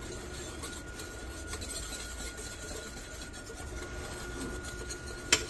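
Fingers stirring and rubbing a dry powder coating mix in a bowl, a soft steady rasping. There is one sharp click near the end.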